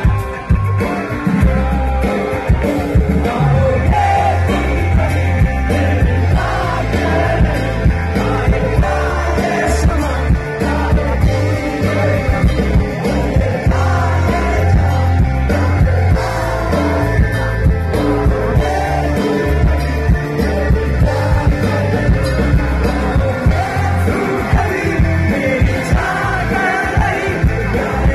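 Live rock band playing loudly: electric guitars and drums with a singing voice, heavy in the bass.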